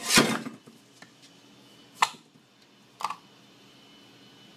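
Heavy metal compressor parts being handled: a short scraping knock as the rotor is worked in the stator housing, then two sharp metallic clinks about a second apart.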